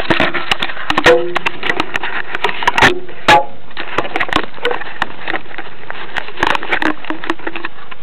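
Irregular clicks, knocks and rubbing from hands handling the tow line at the tail of a radio-controlled glider-tug model, close to the microphone, over a steady background hiss.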